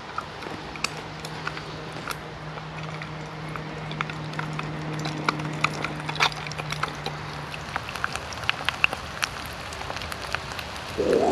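Irregular crackles and pops from a small wood-fired hobo stove with an egg frying in oil over it, under a steady low hum that stops about eight seconds in.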